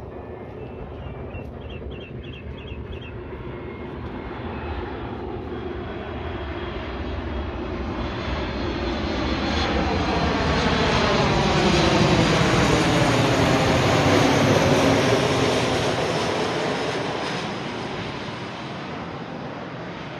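Jet airliner flying past overhead: its engine noise builds steadily, is loudest a little past halfway through, then fades away as it recedes.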